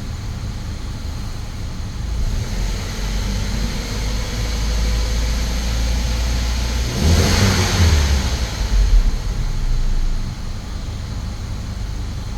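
Saab 9-3 Turbo four-cylinder engine idling, then revved up from about two seconds in. The revs peak hardest around seven to nine seconds before dropping back to idle. The engine has a slight misfire, felt from the driver's seat, that the scan tool's misfire counter puts on cylinder three.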